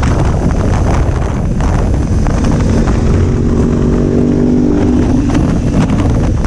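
A 2019 BMW F850GS Adventure's parallel-twin engine running at a steady pace under way, mixed with heavy wind rush on the microphone. For about three seconds in the middle, a steady engine hum stands out clearly from the wind noise.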